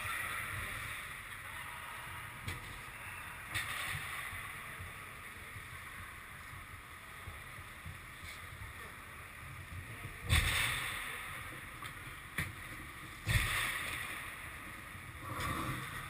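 Ice hockey play on an indoor rink: steady rink background noise broken by several sharp knocks of stick and puck play, the two loudest about ten and thirteen seconds in.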